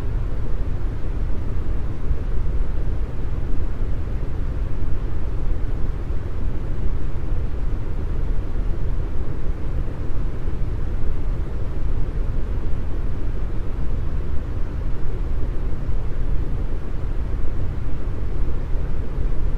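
Deep brown noise: a steady, even hiss heavy in the bass and thin in the highs, with no changes.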